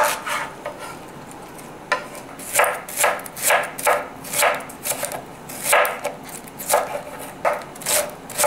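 Chef's knife chopping red cabbage leaves finely on a wooden cutting board. After a pause of about two seconds come quick, even chops, about two or three a second, each blade stroke knocking on the wood.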